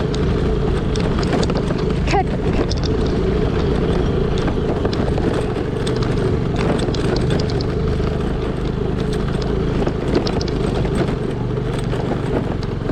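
Scooter engine running steadily under way on a rough dirt road, with frequent knocks and rattles from the bumps.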